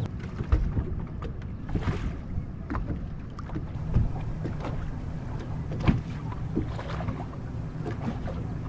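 Wind buffeting the microphone with a steady low rumble, while small waves slap and knock against the bass boat's hull now and then, most sharply about four and six seconds in.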